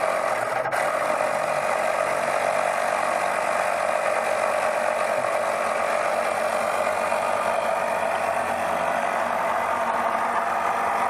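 Automotive smoke leak-detection machine running steadily with an even mechanical hum, pumping smoke into the engine intake to reveal a vacuum leak. A brief click near the start.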